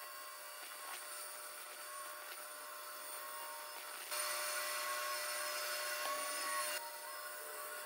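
Pegas scroll bandsaw running with a thin blade, cutting a wooden board along a curved pattern line. The cutting grows louder a little past halfway for a couple of seconds, then drops back.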